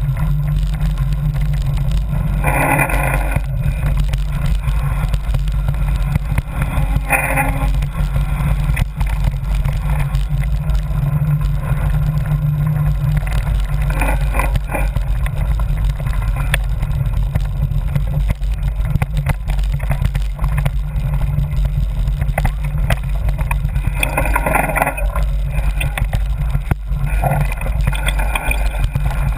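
Steady low rumble of ride noise on a camera carried on a mountain bike moving along a dirt trail. A few short, louder rattles come through now and then.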